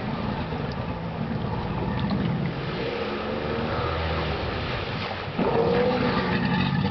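1995 Polaris SL750 personal watercraft's two-stroke engine running under throttle, then revving up and getting louder about five seconds in as the jet ski lifts its nose.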